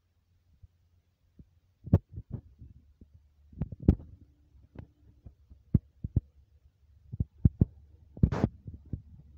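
A dog gnawing on a raw kangaroo spine: irregular cracks and low thuds with no steady rhythm, and a longer rasping crunch near the end.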